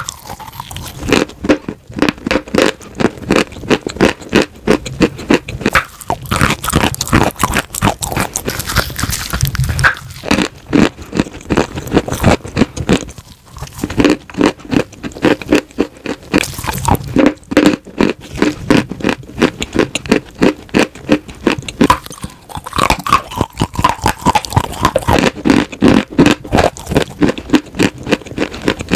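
Close-miked crunching and chewing of white chalk and clay with a creamy paste: rapid, dense crunches and wet scraping bites, with a couple of brief lulls.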